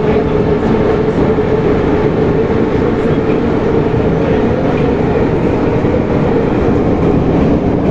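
Moscow metro train of the 81-717/714.5A type running steadily: a constant rumble with a hum held on one note.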